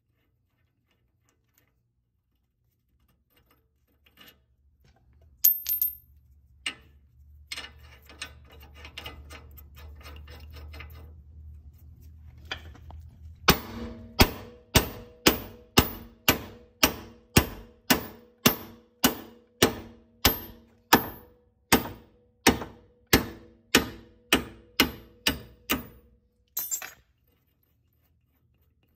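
Hammer blows on a front wheel stud of a 2000 Mustang GT hub, driving the old stud out of the hub flange. After a few scattered knocks, about twenty steady strikes come at roughly two a second, each with a metallic ring from the hub, and they stop shortly before the end.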